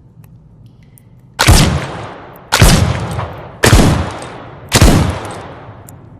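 Four single pistol shots of the "Escarlata" M556 pistol sound effect, fired evenly about a second apart, each with a long fading echo.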